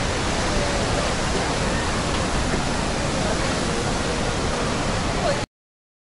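Steady rushing roar of Iguazu Falls' water, with faint crowd voices now and then. It cuts off suddenly about five and a half seconds in.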